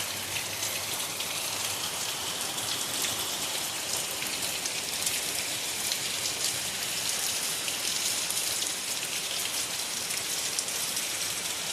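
Steady rain falling, a dense even hiss scattered with fine drop ticks.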